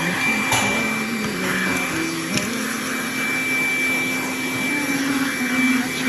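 Makita cordless handheld vacuum running steadily, sucking up wood chips and sanding dust from a floor: a constant high motor whine over a lower hum that shifts a little in pitch, with a couple of sharp ticks.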